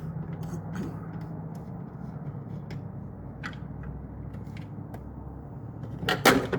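Phillips screwdriver backing out the screw of a Honda Civic's front turn-signal housing, with faint scattered clicks and scrapes. Near the end there is a brief, louder clatter of handled plastic and metal parts, over a low steady hum.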